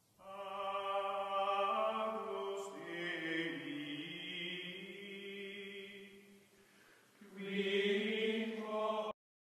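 Slow outro music of sustained, choir-like held chords. It fades away about six seconds in, then a second chord swells up and cuts off abruptly near the end.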